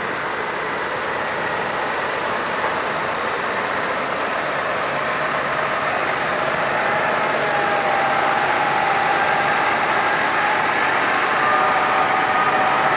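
Heavy farm machine's engine running and slowly getting louder, with a whine that rises in pitch over the last several seconds.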